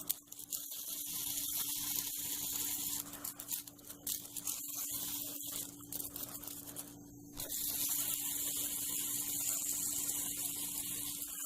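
A steady hiss with a faint low hum beneath it, breaking off for about half a second a little past the middle.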